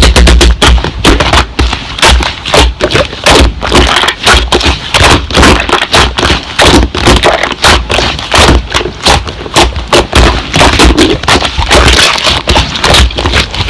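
Slime being squished and pressed: a dense run of sticky clicks and crackling pops, with low thumps coming and going.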